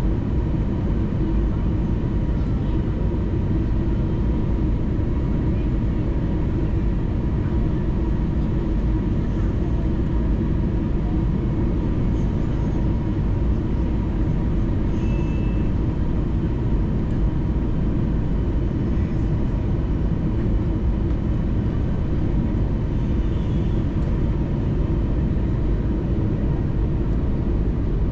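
Airbus A320neo cabin noise heard from a window seat over the wing: a steady low rumble of engines and airflow with a faint hum, unchanging throughout.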